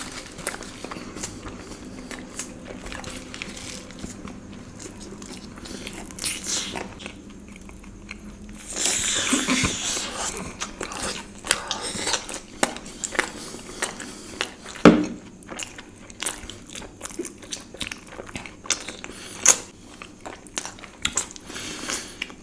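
Close-miked biting and chewing of Indian sweets (mithai), with many small wet mouth clicks. There is a louder, noisier stretch about nine seconds in and a sharp click about fifteen seconds in.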